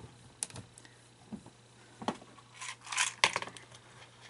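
Small hard parts being handled by hand: a few sharp clicks and light rattling, with a short scraping rustle just before the loudest click about three seconds in.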